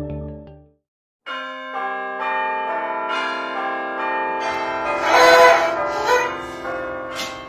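Bell chimes: ringing notes that enter one after another and sustain over each other, building a layered, pealing chord. About five seconds in there is a short, hissy swell, the loudest moment. Soft ambient music fades out in the first second.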